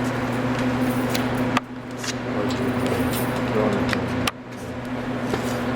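Steady electrical hum with fan-like air noise, broken by a few small clicks and knocks of handling. The noise drops out abruptly twice and then comes back.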